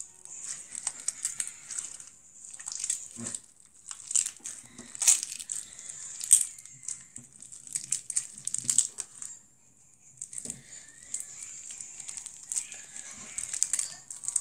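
Hands squishing and stretching slime, giving dense, irregular crackling and popping, with a brief lull about two-thirds of the way through.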